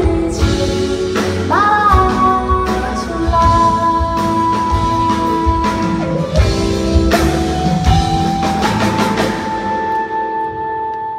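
A live pop band plays the closing bars of a song: singing over guitar and drum kit, with long held notes. The music thins out near the end as the song finishes.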